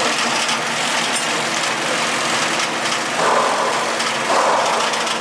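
Welding-shop noise: a steady machine hum under a continuous crackling hiss. Two louder rough bursts, each about a second long, come in the second half.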